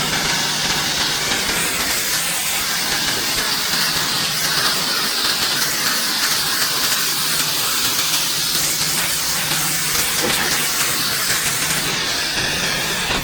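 Pressure washer spraying water onto a driveway: a loud, unbroken hiss with a low steady hum of the machine's engine underneath.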